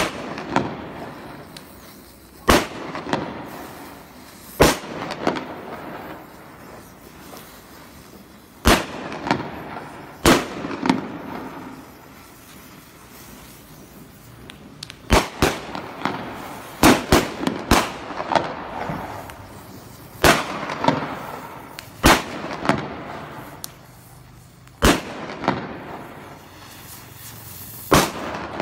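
A hanging string of red firecrackers going off: single loud bangs at irregular intervals, one every one to four seconds, bunching into a quicker run of bangs about halfway through, each followed by a ringing echo.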